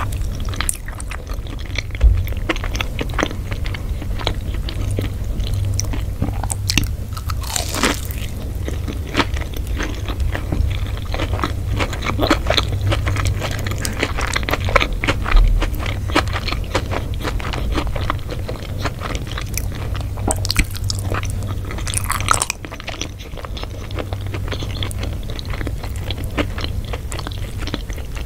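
Close-up chewing and biting of crunchy food, with dense, irregular crisp crunches throughout. A low steady hum sits underneath until about three-quarters of the way through.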